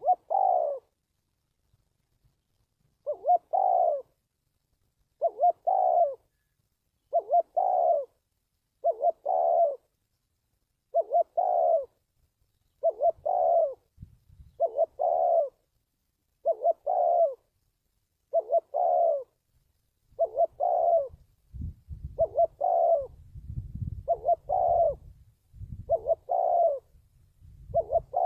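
Spotted dove cooing: a short coo phrase repeated about every two seconds, a lure call for trapping doves. A low rumble joins underneath about two-thirds of the way through.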